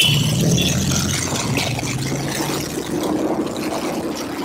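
Motorcycle and scooter engines running in slow, crowded street traffic, a steady low drone under general traffic noise, with a short high beep at the very start.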